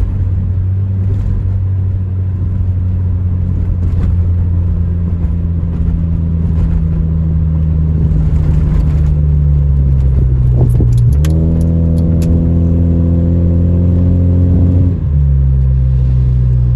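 Honda Civic EJ9's four-cylinder engine running under way with misfires on all four cylinders (codes 71–74), a steady low drone. About two-thirds of the way through the engine speed jumps up and climbs for a few seconds, then falls back near the end as the automatic gearbox shifts.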